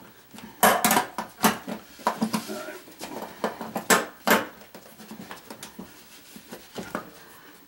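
Crockpot slow cooker's metal housing and base plate knocking and clattering as they are shifted and lined up by hand, with a run of sharp knocks in the first half, then quieter rubbing and handling.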